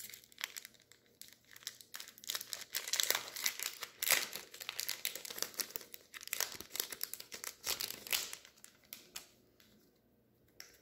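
Foil wrapper of a Magic: The Gathering booster pack crinkling and tearing as it is opened, a run of irregular crackles that stops about nine seconds in.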